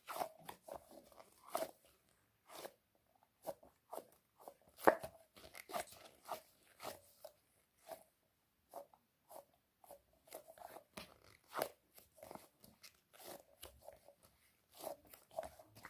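Squishy toys being squeezed and handled, giving many short, irregular crackling crunches, a few per second, with one louder crunch about five seconds in.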